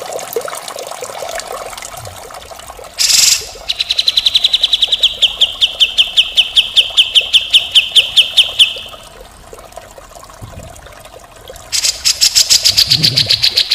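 Water trickling, then a cucak jenggot (grey-cheeked bulbul) calling harshly. About three seconds in comes a short rasping burst, then a fast trill of evenly spaced notes that drops slightly in pitch over about five seconds. Near the end comes another harsh rapid series.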